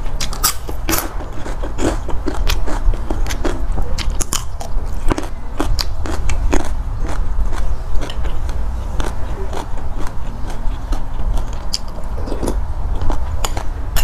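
Close-miked chewing: a person biting into and eating food, with many irregular crisp crunches and mouth clicks over a steady low rumble.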